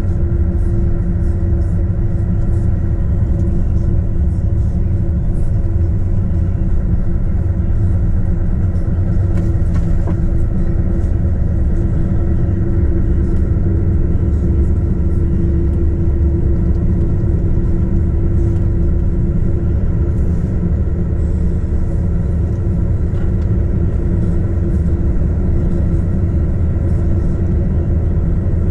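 Heavy truck's diesel engine running steadily at an even speed, with a constant low rumble from the tyres on a snow-packed road.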